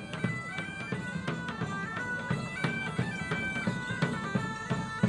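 Bagpipes playing a stepping melody of held notes over a steady drum beat: minstrel music for a procession.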